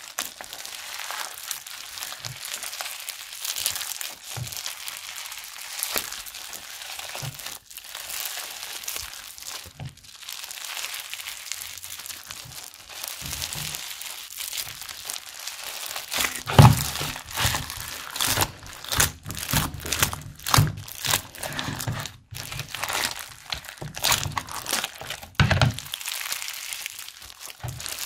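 Foam-bead slime being kneaded and squeezed by hand, the beads crackling and crunching in a continuous crinkle. From about halfway it turns into a run of sharp sticky pops and snaps with soft thuds as the slime is stretched and pressed.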